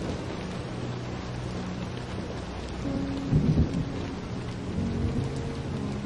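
Steady rain falling, with a low roll of thunder that swells about three and a half seconds in.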